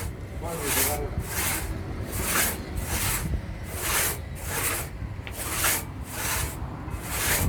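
Hand tool rasping in even back-and-forth strokes, roughly one stroke every three-quarters of a second, each a bright hiss.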